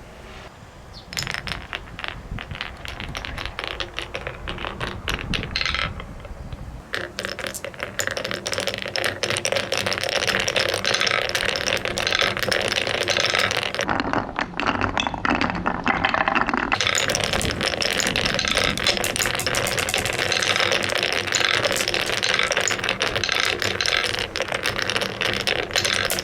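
Many marbles rolling and clattering down a marble run, a dense rattle of clicks that starts about a second in and grows louder and thicker from around eight seconds.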